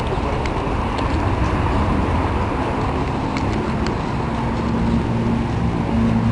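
Steady vehicle noise with heavy low rumble, and a low engine hum that comes through more clearly in the second half.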